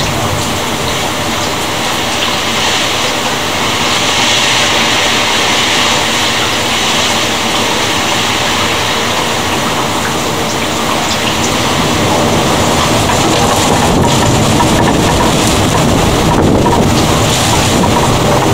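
Heavy rain pouring steadily in a thunderstorm, with a deeper low rumble swelling in the second half.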